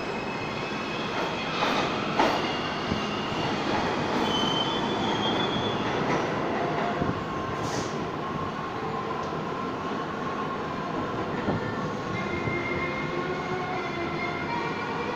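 R160A New York City subway train on the E line pulling out of the station and running away down the tunnel: a steady rumble of wheels on rail with high wheel squeals and a few sharp clicks in the first seconds, easing off a little as it recedes.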